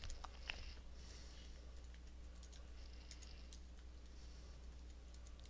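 Faint typing on a computer keyboard: irregular single keystrokes as a web address is typed in, over a low steady hum.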